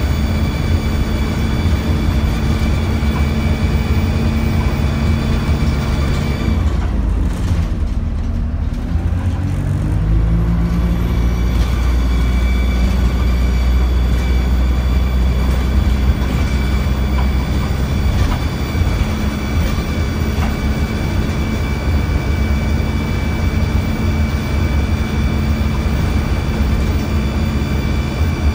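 Dennis Dart single-deck bus heard from inside the saloon: engine and drivetrain running with a steady whine over a low rumble. A few seconds in, the note falls away as the bus slows, then around ten seconds in it climbs again with a heavier rumble as the bus pulls away and gathers speed.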